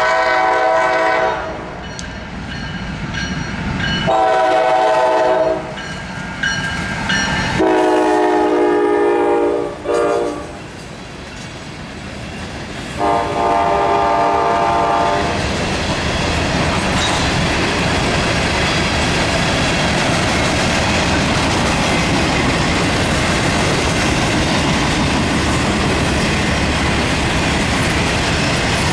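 Freight train locomotive horn sounding four blasts of a multi-note chord as the train reaches the crossing. The freight cars then roll past with a steady rumble and clatter of wheels on rail joints.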